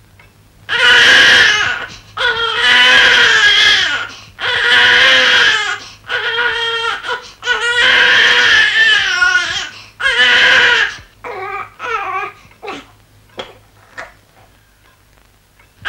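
Newborn baby crying: five long, loud wails of about a second each, then shorter, fainter whimpering cries that trail off near the end.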